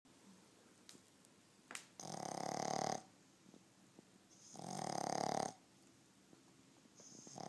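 A ten-week-old Boston Terrier puppy snoring in its sleep, like a human. There are two loud, buzzing snores about a second long each, roughly two and a half seconds apart, and a third begins near the end. Heavy snoring like this is typical of the breed's short, flat muzzle.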